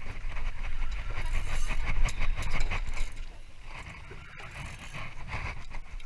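Spinning reel being wound in by its handle, its gears giving a fast, steady ticking whirr. It is louder for the first three seconds, then quieter.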